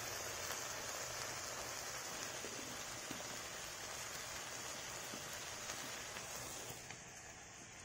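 Cauliflower, potato and dried fish sizzling in a wok over a wood fire: a steady hiss that eases off slightly near the end.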